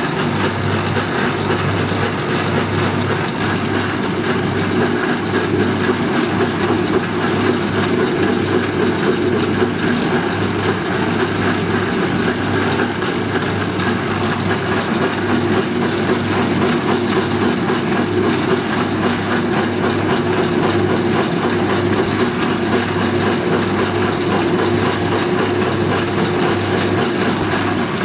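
Atlas 10-inch Model TV36 metal lathe running under power: motor, belts and gearing making a steady mechanical running sound with a faint regular pulse and a thin high whine.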